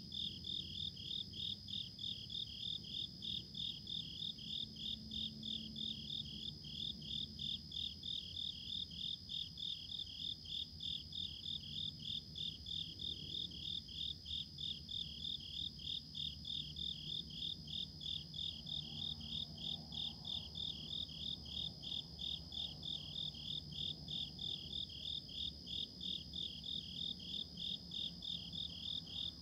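Crickets chirping steadily: a rhythmic chirp about three times a second over a continuous high trill.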